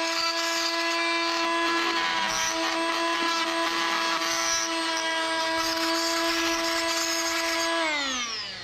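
Wesco oscillating multi-tool running steadily with a square plunge-cut blade, undercutting the bottom of a wooden door jamb, a steady buzzing whine with the rasp of the blade in the wood. About eight seconds in it is switched off and its pitch falls as it winds down.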